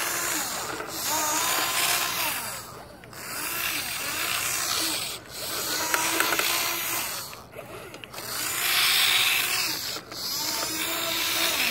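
Electric drive motor and gearbox of an RC toy truck whirring in bursts of about two seconds with short breaks between, its pitch rising and falling as the truck speeds up and slows.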